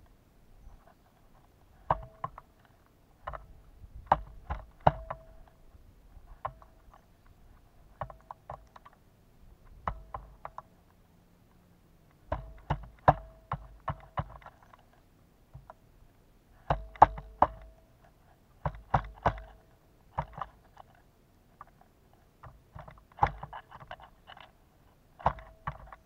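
Pileated woodpecker pecking at suet in a wire suet cage: sharp knocks in irregular bursts of several quick strikes, with short pauses between bursts.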